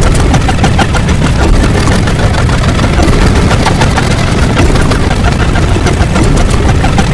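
Loud, dense rumbling noise with rapid crackling, an engine-like sound effect.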